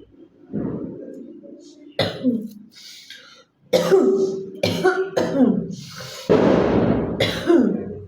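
A woman coughing repeatedly, about six short, sharp coughs, with a longer rasping throat-clearing hawk about two-thirds of the way through.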